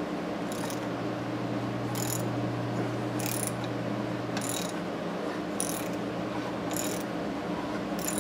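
A ratchet handle turning a hand reamer through the brass bore of a Maytag 92 engine's connecting rod clamped in a vise. The ratchet's pawl clicks in a short burst on each back-swing, seven times, about every second and a bit, as the reamer takes material off the brass.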